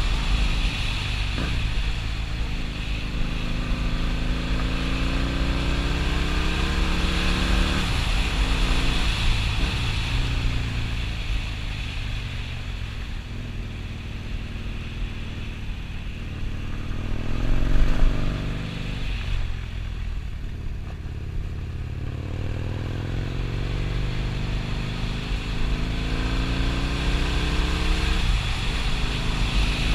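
Husqvarna Nuda 900R's parallel-twin engine pulling under throttle on a ride. Its pitch climbs and drops back several times as the rider accelerates and shifts gears, with the loudest surge of revs about two-thirds of the way through.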